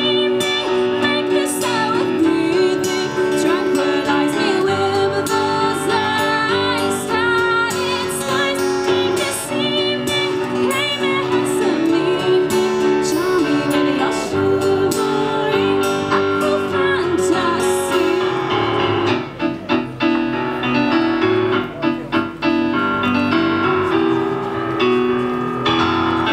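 Live song: a woman singing over a Casio electric keyboard and a strummed acoustic guitar. The voice drops out after about 18 seconds, leaving keyboard and guitar playing on.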